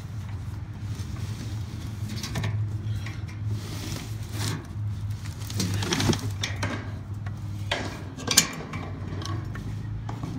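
Scattered metal clinks and scrapes of tongue-and-groove pliers working a nut on a steel mesh garden cart frame, with a sharp click about eight seconds in, over a steady low hum.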